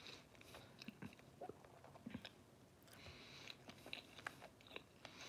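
Faint chewing of sushi: soft, scattered mouth clicks and smacks.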